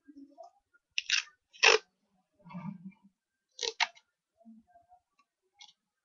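Hands working with tape and a small paper card: a handful of short, sharp clicks and snips, the loudest just before two seconds in.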